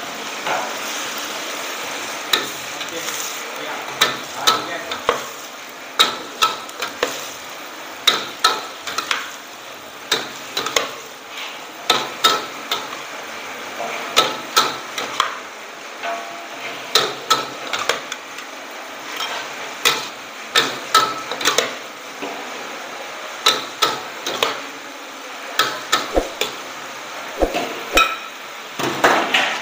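Metal spatula and ladle clanging and scraping against a wok as noodles are stir-fried, in quick irregular clusters of sharp clacks over a steady hiss.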